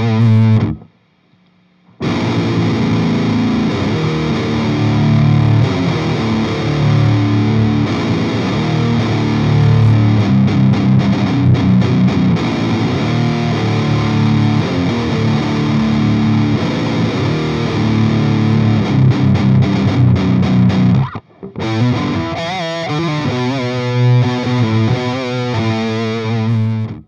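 Electric guitar played back from a looper through a Fuzzlord Effects Doom Screamer overdrive pedal into an Orange Micro Dark preamp, with a heavily distorted tone. The playing stops for about a second near the start and drops out briefly once more later on.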